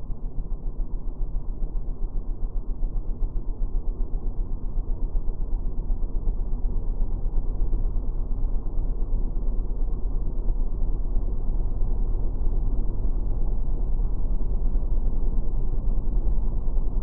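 Muffled, steady motorcycle riding noise picked up by a helmet-mounted camera: a low rumble of wind and the Triumph Explorer's engine, growing slightly louder after the first couple of seconds.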